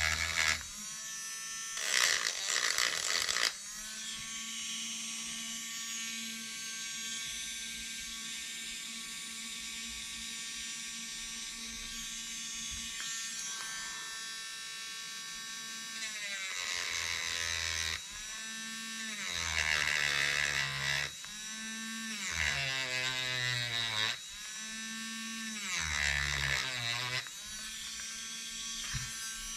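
Small corded rotary tool running with a small bit, a steady whine for a long stretch. In the second half its pitch sags four times, each time with a rasping grinding noise, as the bit is pressed against the part being worked.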